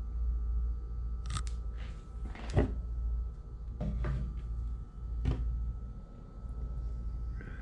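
A few short knocks and clicks from handling the RC dirt bike and its stand on a wooden table, the loudest about two and a half seconds in. A steady low hum runs underneath.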